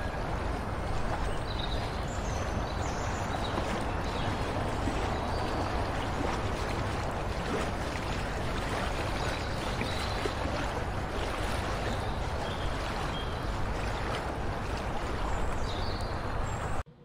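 Steady water lapping and splashing with wind rumbling on the microphone, and a few faint, short, high bird calls now and then.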